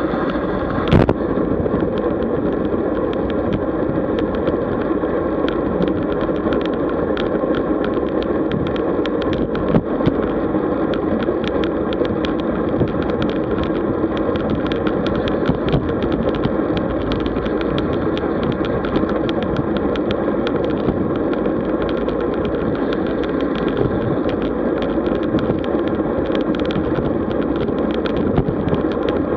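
Steady wind and road noise of a road bike ride, with frequent small ticks and rattles throughout and a couple of sharper knocks about a second in.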